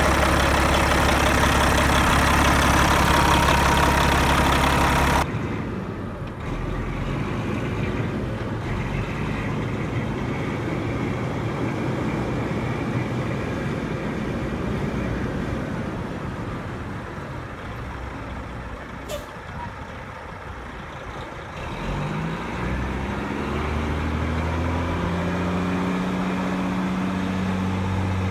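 1994 Kenworth T800 truck tractor's diesel engine idling steadily, heard up close under the open hood. About five seconds in it drops to a quieter, more distant engine sound as the truck drives around. Later the engine note rises as the truck accelerates and then holds steady.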